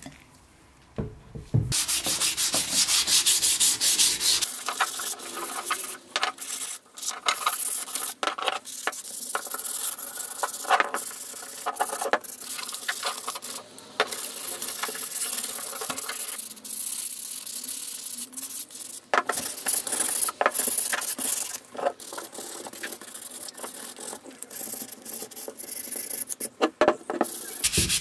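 Hand sanding of a primed metal cover plate from a hand drill, wet with sprayed water: repeated back-and-forth rubbing strokes of abrasive paper on the painted surface, starting about two seconds in and going on with short pauses.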